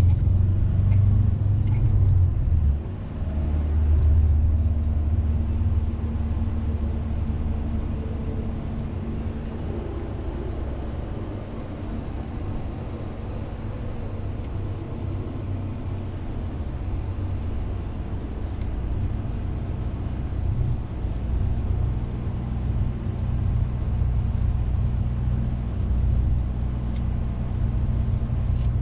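Vehicle engine and road rumble heard from inside the passenger cabin while driving, a steady low drone with a low hum over it. It is louder in the first few seconds, eases through the middle and builds again near the end.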